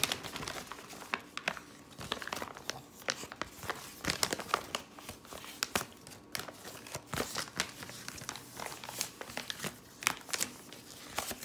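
Paper insert leaflet and toy packaging crinkling and rustling as they are handled and folded, with many irregular sharp crackles.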